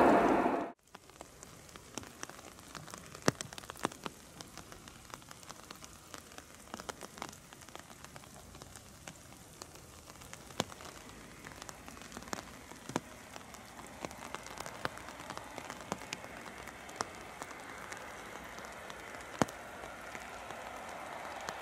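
Steady rain hiss with many sharp single drop ticks, after a louder noise cuts off abruptly less than a second in. A faint rushing builds over the last several seconds, likely the Emirates Airbus A380's jet engines as it taxis closer.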